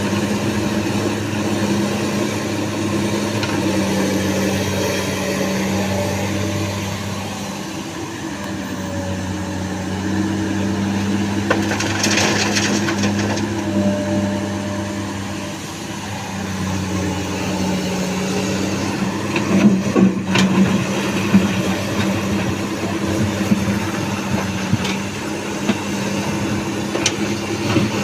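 Komatsu hydraulic excavator's diesel engine running steadily, easing off twice and picking up again as the working load changes. There is a burst of rattling about twelve seconds in and a few knocks around twenty seconds in.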